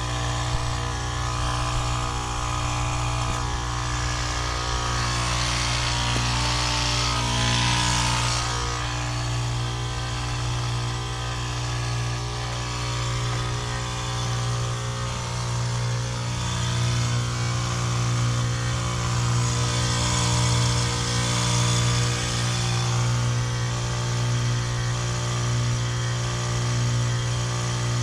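2012 Lennox Merit heat pump running in its defrost cycle: a steady, loud compressor hum with several fixed tones above it. Hissing swells up about a quarter of the way in and again about three quarters of the way through.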